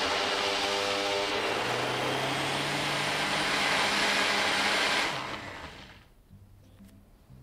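Toshiba countertop blender motor running steadily, churning beetroot and water into juice; it winds down and stops about five to six seconds in.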